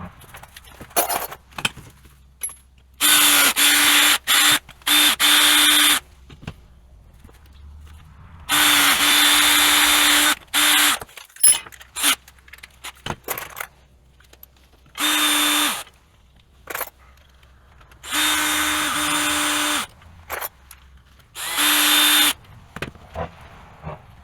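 Electric drill running in five short runs of one to three seconds each, drilling holes through a flat-belt splice for the bolts that hold it together. Clicks and handling noises fall between the runs.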